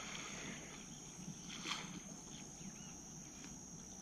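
Faint outdoor ambience: a steady, high-pitched insect buzz with a few faint bird chirps and one soft click.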